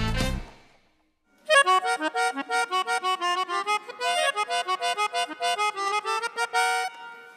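Melodica, a blown keyboard played through a mouthpiece tube, sounding a quick run of short, separate notes. The notes start about a second and a half in, after a moment of quiet.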